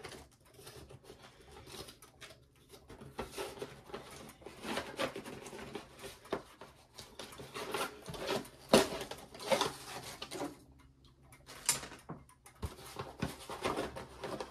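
Cardboard box and packaging being handled: irregular rustling, scraping and light knocks, with one sharper knock about nine seconds in.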